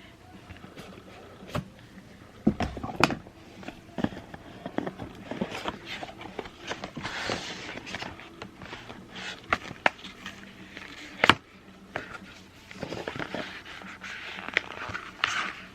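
Cardboard and plastic packaging of a video doorbell being handled and rustled while it is unboxed, with scattered clicks and knocks of the box and its parts. The sharpest knocks come about three seconds in and about two-thirds of the way through.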